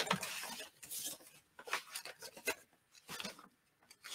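Folded sheets of vintage ledger paper rustling and sliding against each other as they are handled and laid into a journal, in short, scattered rustles.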